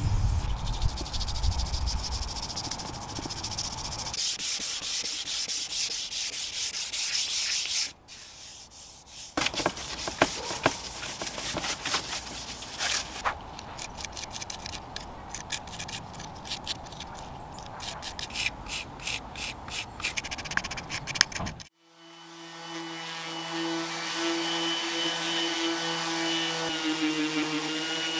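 Gloved hand scrubbing across wood veneer. Then a small putty knife scrapes and taps as it presses wood filler into a hole. About three quarters of the way in, a Ryobi random orbit sander spins up and runs with a steady hum against the wood.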